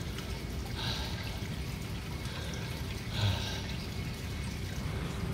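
Pool water lapping and trickling around a man sitting chin-deep in it, with two soft swishes, about a second in and about three seconds in.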